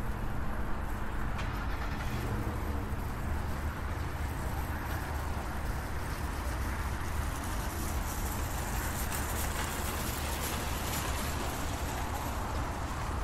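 Supermarket car park ambience: a steady low rumble of traffic, with a car driving past that swells and fades in the second half.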